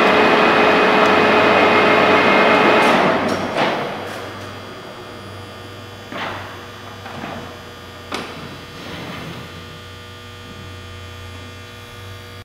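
TOS W100 horizontal boring mill running under power with a steady whine, stopping about three seconds in. Its electrical hum carries on after that, with a few sharp clunks as the controls are worked.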